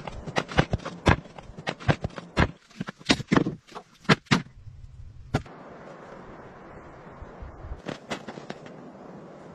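Split firewood logs clunking against one another as they are handled and stacked, a rapid run of sharp wooden knocks that stops about four and a half seconds in. After that comes a steady faint hiss, with a few light knocks near the end.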